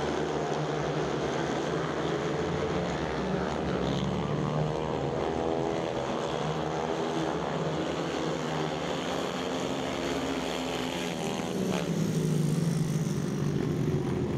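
Several speedway motorcycles' 500 cc single-cylinder methanol engines running at full throttle together, their pitches rising and falling as the bikes slide around the track. Louder for the last couple of seconds.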